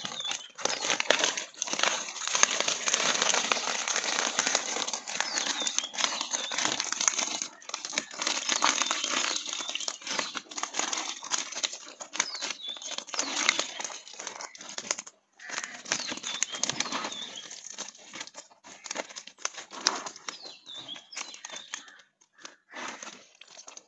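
Freshly netted tilapia flopping and slapping on the wet concrete floor of a drained pond, a dense, irregular patter of wet slaps that thins out into scattered single slaps near the end.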